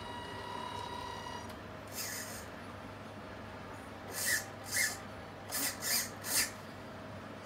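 Tamiya 1/14 Mercedes-Benz Actros RC truck's sound unit: a steady high reversing tone stops about a second and a half in. Then come a short hiss of air and, between about four and six and a half seconds in, five quick hisses like air brakes releasing.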